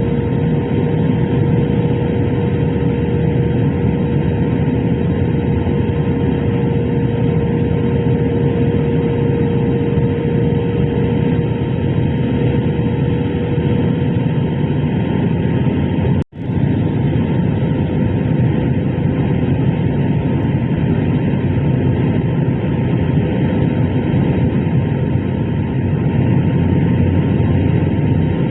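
Airliner cabin noise on approach to landing: the jet engines and rushing airflow make a steady, loud roar with a constant tone running through it. The sound breaks off for a split second about sixteen seconds in.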